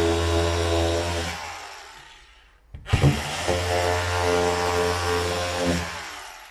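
Makita cordless drywall saw cutting into a plasterboard ceiling in two runs. It runs steadily and winds down about a second and a half in. A knock follows near the middle. It then starts again, runs steadily and winds down near the end.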